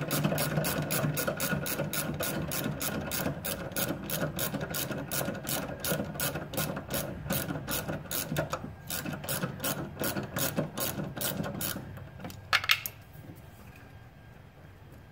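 Hand socket ratchet on a long extension clicking steadily, about four clicks a second, as it loosens a 14 mm fastener on a Toyota Matrix motor mount. The clicking stops about twelve seconds in, followed by one sharper click.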